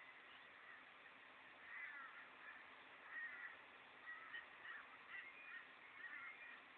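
Faint birds calling, a scattered series of short chirping notes every second or so.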